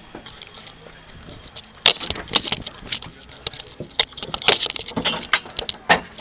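Handling noise from a camera being moved and fitted in place inside a car: a quick irregular run of clicks, knocks and rattles, beginning about two seconds in.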